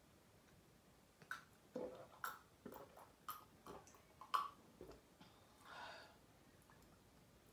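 A person drinking from a glass in a run of about eight quick gulps and lip sounds, then a short breathy exhale after lowering the glass.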